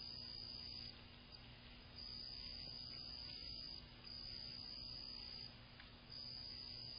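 An insect trilling: a high, steady trill in long stretches of about two seconds, broken by short pauses. A faint low hum runs underneath.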